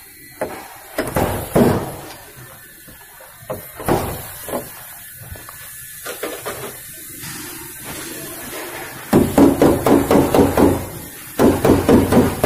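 Scattered single knocks and thumps on a dented car body panel, then about nine seconds in a fast, even run of knocking, about five or six strokes a second, with the metal panel ringing.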